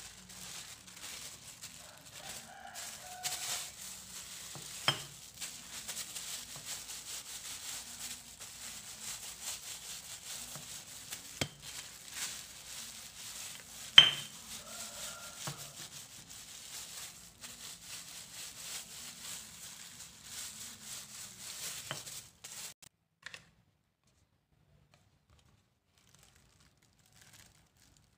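Plastic sheeting crinkling and rustling while rice dough is pressed flat through it with a glass bottle, with scattered sharp knocks of the glass, the loudest near the middle. The rustling stops suddenly about three-quarters of the way through.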